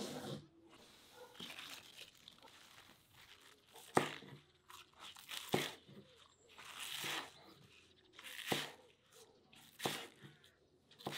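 Kitchen knife slicing green onions on a wooden cutting board: crisp crunches as the blade cuts through the stalks, with about five sharp knocks of the blade on the board at uneven intervals.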